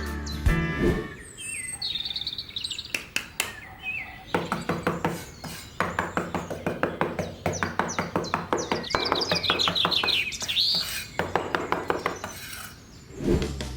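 Small birds chirping and tweeting, with a rapid run of repeated clicks through the middle.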